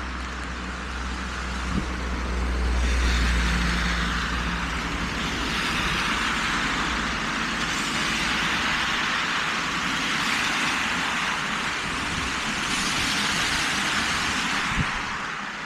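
Cars passing on a rain-wet street, their tyres hissing on the wet asphalt. A low engine rumble swells as one goes by about three seconds in.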